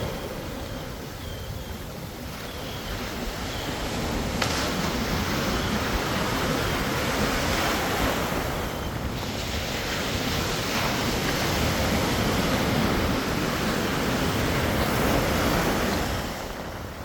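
Ocean surf breaking and washing up the beach, a steady rush that swells and eases over several seconds, with wind buffeting the microphone.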